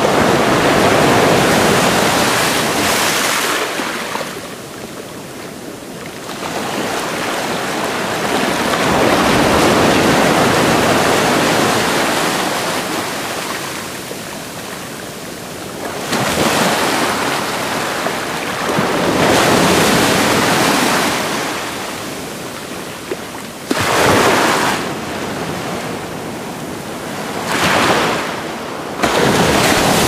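Ocean surf breaking on the beach: a rushing wash that swells and fades every few seconds, with a few sharper surges near the end.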